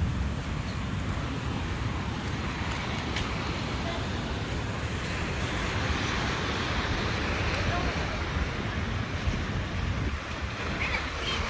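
Wind buffeting the microphone over the gentle wash of small waves breaking on the shore, a steady rumble and hiss with no distinct events.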